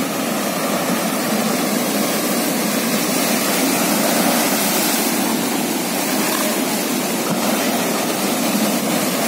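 Heavy storm surf, raised by a passing hurricane, breaking over shoreline rocks: a loud, steady rush of churning whitewater that swells slightly about halfway through.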